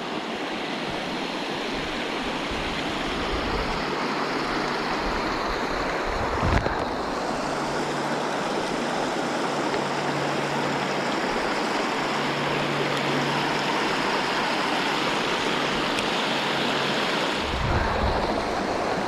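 Creek water rushing steadily, with a short thump about six and a half seconds in and a low rumble near the end.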